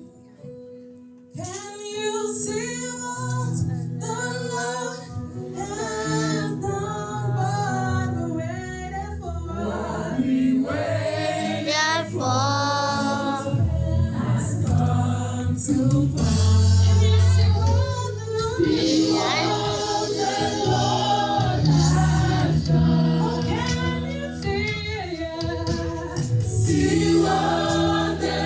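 Gospel choir singing a praise song over a steady low instrumental backing, starting after a brief quiet moment about a second and a half in.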